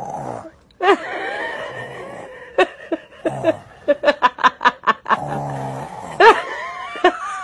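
A young child fake-snoring, making raspy, rumbling snore noises through an open mouth, with quick bursts of giggling and laughter in between.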